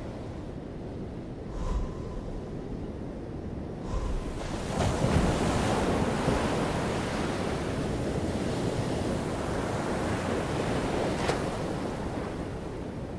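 Ocean surf washing in, swelling loudly about five seconds in as a wave breaks and rushes, with wind. Two brief soft thumps come in the first four seconds.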